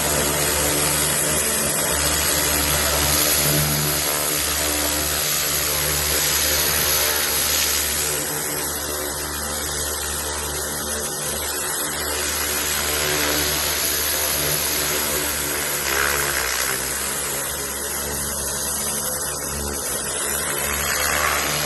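Pressure washer running, a steady motor hum under the hiss of the water jet blasting slime off a dark stone surface; the spray sound shifts as the jet is moved.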